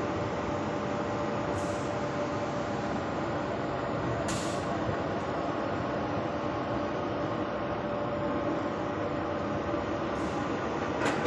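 Industrial belt conveyor running: a steady mechanical rumble with a faint steady hum through it.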